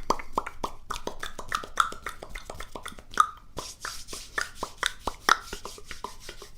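Close-miked ASMR mouth sounds: quick wet clicks and pops, several a second, some with a short hollow ring.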